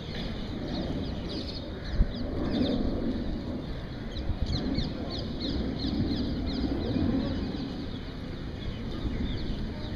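Many small birds chirping continuously, short quick calls overlapping, over a low steady outdoor rumble, with a single sharp knock about two seconds in.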